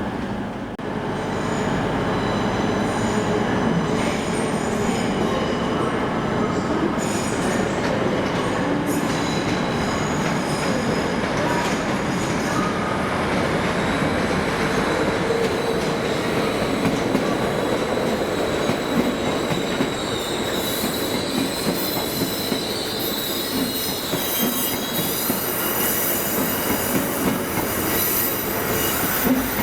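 A train moving over the rails with a steady rumble, its wheels squealing in a thin, high tone that wavers in pitch, most plainly in the second half.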